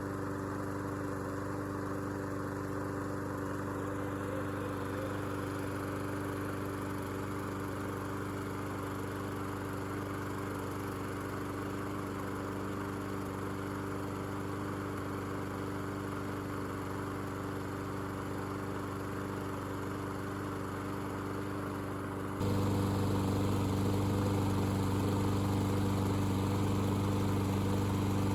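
Small lawn mower engine running steadily at constant speed. About three quarters of the way through it suddenly gets louder and stays at that level.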